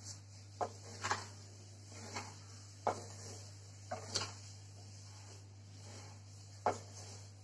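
Wooden spatula stirring whole amla (Indian gooseberries) through dry, not yet melted sugar in a kadhai, giving short knocks and scrapes against the pan every second or so.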